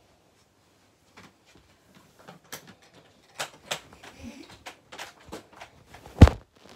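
A handheld phone being moved and handled: a run of small clicks and knocks, and one loud thump near the end.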